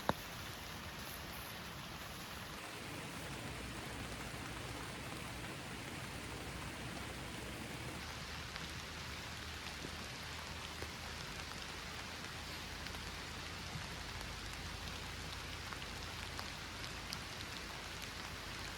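Steady rain falling, with many small drops ticking. There is one sharp click right at the start.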